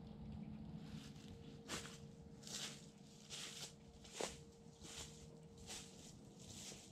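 Faint footsteps walking through dry fallen leaves, about one step every three-quarters of a second, growing fainter as the walker moves away.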